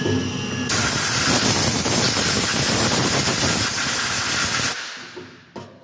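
Compressed-air blow gun hissing in one long, steady blast, blowing steel chips off the mill's fixture plate. It starts about a second in and dies away about a second before the end.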